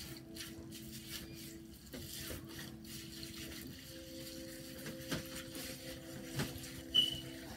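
Clear plastic being crumpled and rubbed by hands, giving soft crinkling and rustling, over faint steady low tones. A brief high-pitched chirp sounds near the end.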